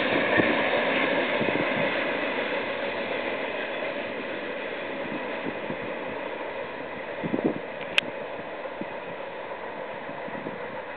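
Noise of a BNSF intermodal freight train fading steadily as its last cars roll away down the track. A single sharp click about eight seconds in.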